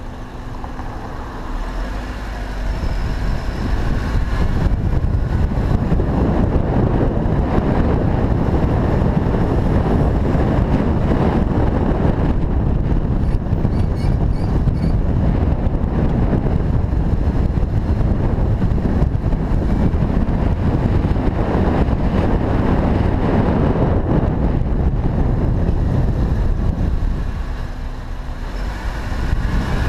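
Acura RSX on the move: steady road and engine noise, building over the first few seconds and easing briefly near the end. A few faint, short high squeaks come through around the middle.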